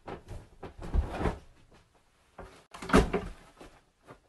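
Two clusters of knocks, thumps and rustling, the loudest thump about a second in and another about three seconds in.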